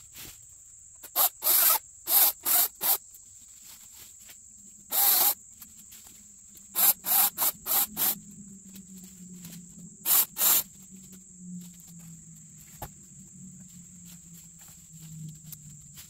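Short rough scraping strokes in quick groups of two to five, over a steady high drone of insects.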